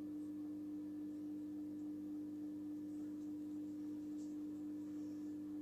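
A steady low hum: one constant tone with a fainter, lower one beneath it, unchanging throughout.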